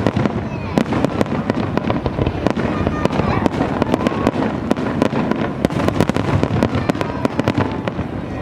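New Year fireworks display going off continuously: a rapid, irregular barrage of bangs and crackles, several a second.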